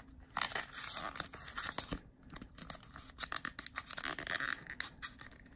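Foil wrapper of a Pokémon trading card booster pack being crinkled and torn open by hand: a run of irregular crackles and rustles.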